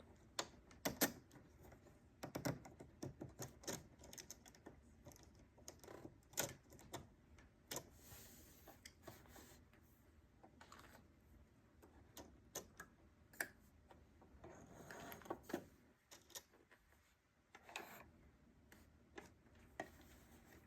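Faint, scattered clicks and soft rustling of hands handling the plastic buttonhole foot, spool holder cap and fabric on a sewing machine; the machine itself is not running.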